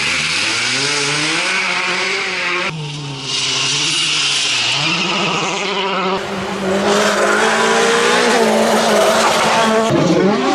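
Volkswagen Polo R WRC rally car engine running hard, its pitch dropping and climbing through gear changes, with a strong high hiss of tyres over it. The sound changes abruptly a few times, as between separate shots of the car.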